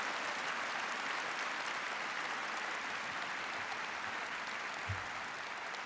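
Large seated audience applauding steadily, the clapping easing off slightly toward the end.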